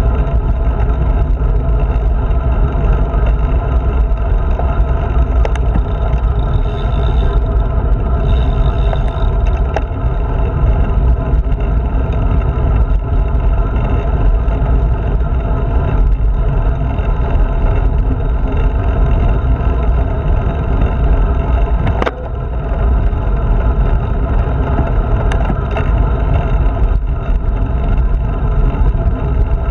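Steady rush of wind and tyre noise on a handlebar-mounted GoPro, heaviest in the low end, as a road bike rolls along at speed. About two-thirds of the way through, a single sharp knock is followed by a brief dip in the noise.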